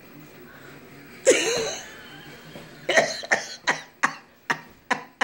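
A person's voice: one drawn-out vocal sound a little over a second in, then from about halfway a string of short, sharp breathy bursts, two to three a second.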